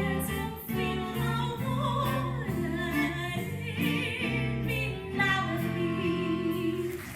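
Music: a singer holding long notes with vibrato over instrumental accompaniment.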